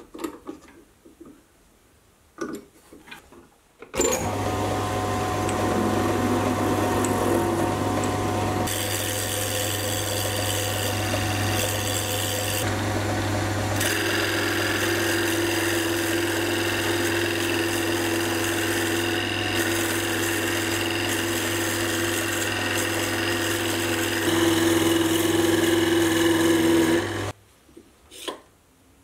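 Sieg C3 mini metal lathe running, its motor giving a steady hum while a cutting tool turns a block of hardwood round. A few light clicks of the block being set in the chuck come first; the lathe starts about four seconds in and stops abruptly shortly before the end.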